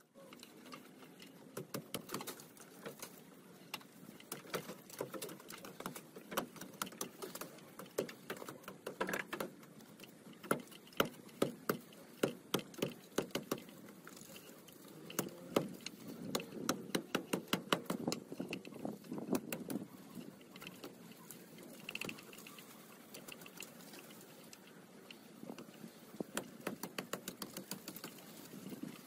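Dry vines, twigs and leaves crackling and snapping as overgrown branches are pulled and broken off by hand, with rustling of foliage. The snaps come in quick irregular runs, thickest about a third and again about halfway through.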